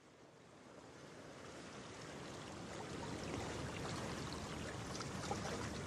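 Rushing water, like a stream or surf, fading in gradually from silence and growing steadily louder.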